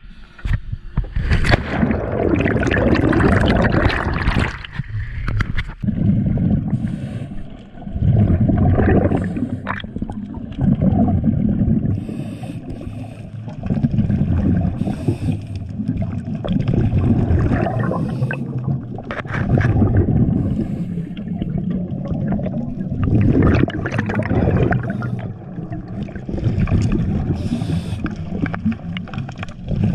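Underwater gurgling of a diver's breathing: muffled rushes of air and bubbles that come and go every two to three seconds. A louder, sharper rush of water comes near the start.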